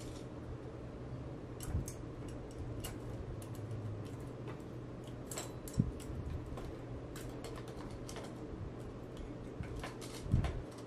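Scattered light clicks and taps of a freewheel removal tool and small metal parts being handled and fitted at a bicycle's rear freewheel, with a few dull thumps, the loudest about halfway through and just before the end.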